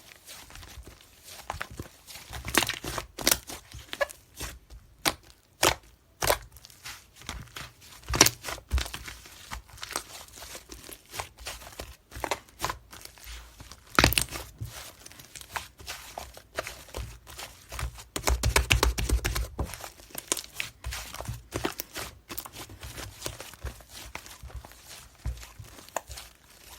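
Irregular crinkling and clicking from objects being handled, with a denser run of rustling about two-thirds of the way through.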